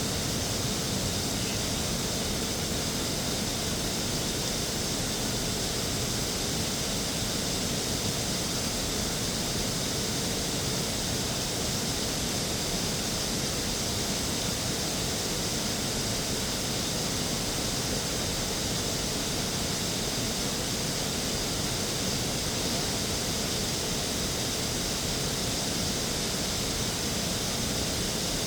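Steady rushing noise at an even level, with no separate sounds standing out.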